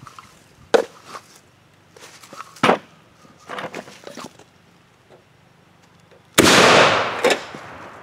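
A few short knocks, then a shotgun with its barrel full of gasoline goes off about six seconds in: one loud sudden blast that rings out and fades over about a second, with a second sharp crack just after.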